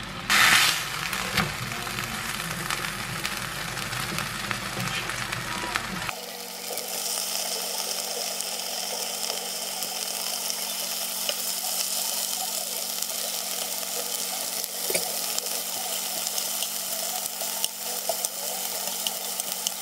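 Marinated beef short rib sizzling in an oiled frying pan, with a brief loud hiss about half a second in and then a steady sizzle. A few light clicks of metal tongs against the pan come later on.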